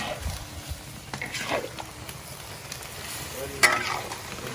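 Spatula scraping and knocking against a large wok as diced pork belly is stir-fried, with a sharp knock about a second in and a louder one near the end.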